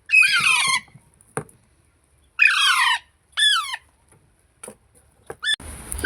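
Baby Indian ringneck parakeet giving three harsh squawking calls, each sliding down in pitch: a longer one at the start, then two shorter ones about two and three seconds later, with faint clicks in between.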